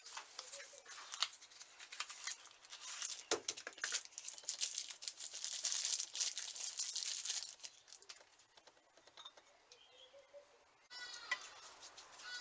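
Paper towel rustling and crinkling as it wipes out the inside of a bench grinder's motor end housing, with small clicks and a thump about three seconds in. Birds chirp near the end.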